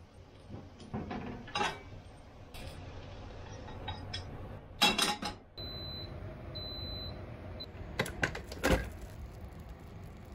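Electric rice cooker beeping about three times on one high pitch, the signal that the rice has finished cooking. A couple of sharp clicks and a dull thump follow as its lid is released and springs open. Earlier come a few knocks and clatters of kitchenware being handled.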